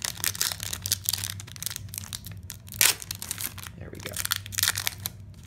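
Foil wrapper of a 2020 Panini Prestige football card pack crinkling and tearing as it is pulled open by hand, in quick irregular crackles, loudest about three seconds in.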